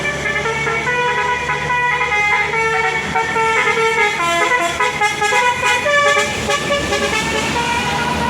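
Bus 'telolet basuri' multi-tone horn playing a quick melody, its notes stepping in pitch several times a second, over a steady low engine hum.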